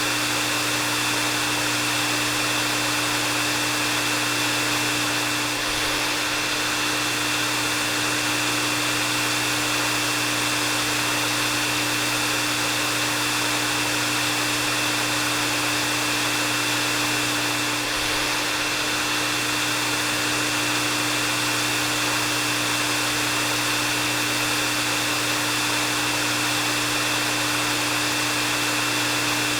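Electric hair dryer running steadily: an even rush of blown air with a constant low motor hum and a thin high whine.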